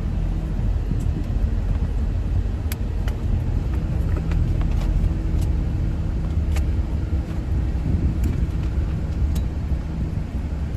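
Car road noise: a steady low rumble with a faint hum, and a few light clicks scattered through it.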